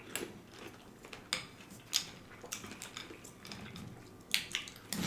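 A spoon clinking and tapping against a bowl while eating: about half a dozen light, separate knocks spread over several seconds.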